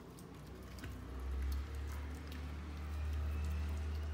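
Dog eating from a food bowl, with scattered small clicks and ticks, over a low steady rumble that sets in about a second in and fades near the end.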